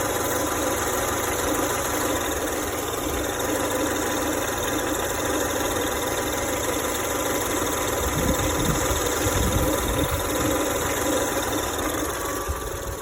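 Ford Focus 1.5 EcoBoost turbocharged petrol engine running with an uneven clacking from inside the engine, an unexplained noise that the dealer says is no problem. A low rumble is added about two-thirds of the way through.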